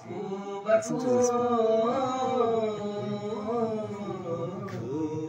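A man's voice chanting one long, drawn-out note that slowly wavers in pitch, starting under a second in: the held opening of a devotional poem sung in praise.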